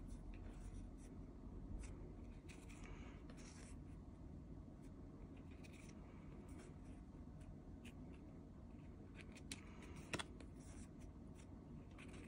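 Faint rubbing and light clicks of small card-stock photocards being slid off a stack and shuffled by hand, with one sharper tick about ten seconds in.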